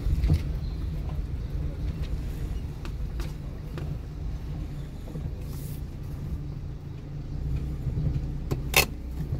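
Car on the road with a steady low engine and road rumble, a few light clicks, and one sharp knock near the end.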